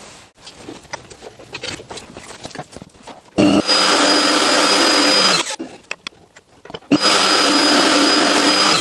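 Router running in two bursts of about two seconds each, a steady high whine over a harsh rushing noise, as it cuts a slightly deeper pass on the threads of a wooden nut in a threading jig. Before it, light knocks and clicks of handling the jig.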